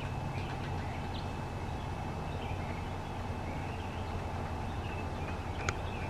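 Outdoor ambience: a steady low rumble with a thin steady high tone, and faint short bird chirps scattered throughout. A single sharp tick comes near the end.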